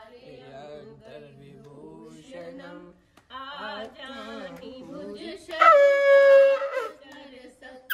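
A conch shell (shankh) blown in one loud, steady, pitched blast lasting about a second, near the end, trailing slightly down in pitch as it stops. Before it come several seconds of softer singing voices.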